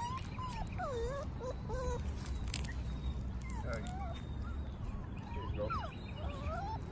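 Dutch Shepherd puppies whining and whimpering: many short high whines that rise and fall, some overlapping, over a low background rumble.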